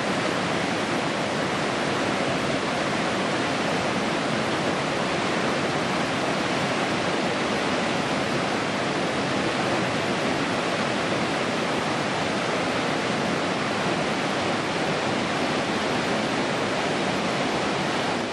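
Whitewater of a small waterfall cascading over rock ledges: a steady rush of falling, splashing water close by.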